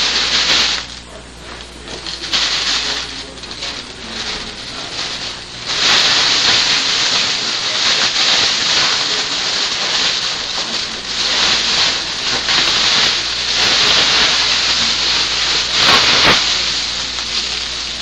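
White plastic sack rustling and crinkling in uneven bursts as it is ruffled, with a cat playing inside it. It is softer for the first few seconds and louder from about six seconds in.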